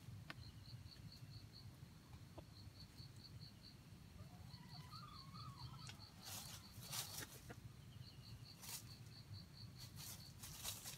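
Faint outdoor quiet with an insect chirping in short, even trains of high pulses, broken by a few brief rustles as a red junglefowl rooster scratches and moves through dry leaf litter.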